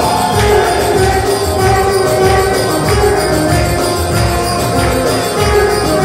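Lively dance music with a steady drum beat under a held, wavering melody line, with handclapping and jingling percussion keeping time.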